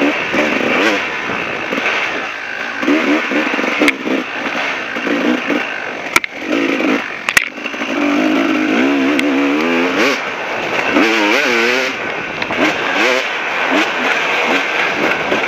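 KTM 380 two-stroke dirt bike engine revving up and down hard, its pitch rising and falling with each twist of the throttle. Two sharp knocks about six and seven seconds in.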